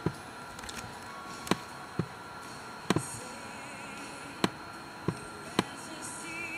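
About seven sharp, single clicks at irregular intervals from clicking on the laptop while editing, over a faint steady hiss.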